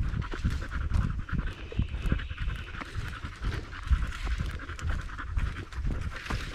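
Steady heavy panting during a brisk walk, over quick, irregular footfalls and bumps on a dirt trail.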